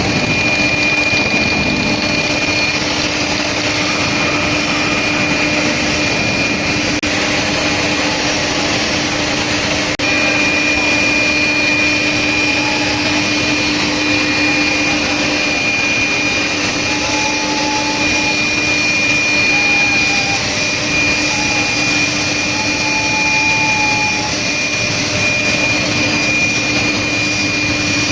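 Steady industrial machinery noise from an induction steel plate hardening line: a constant rushing noise with a steady low hum and a steady high whine. The whine drops out about three seconds in and returns about ten seconds in.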